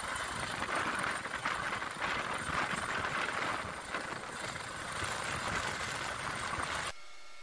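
Rescue helicopter hovering overhead during a winch hoist: a loud, dense rotor and engine noise with a fast flutter, cutting off abruptly near the end.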